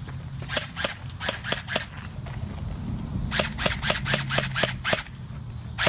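Airsoft guns firing single shots: sharp cracks about a quarter second apart, a string of about five, then about seven more after a short pause, and one more near the end.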